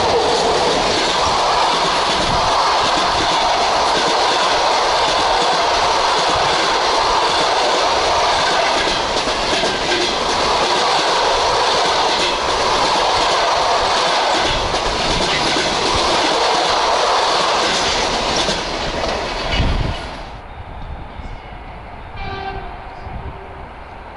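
Russian passenger coaches passing close by at speed: a loud, steady rush of wheels on rails and air around the train, with heavy low rumble. About twenty seconds in the sound drops abruptly to a much quieter background.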